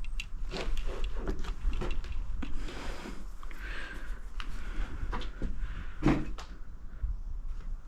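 Irregular knocks, creaks and crunches of footsteps on debris-strewn wooden floors, with a low rumble underneath.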